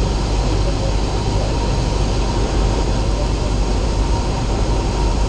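Single-engine propeller airplane's engine and propeller droning steadily, heard from inside the cockpit.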